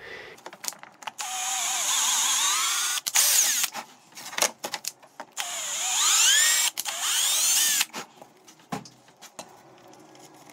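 Handheld cordless drill running in two spells of a couple of seconds each as it bores into a board, the motor pitch sliding up and down as it bites. Clicks and knocks of handling come between and after.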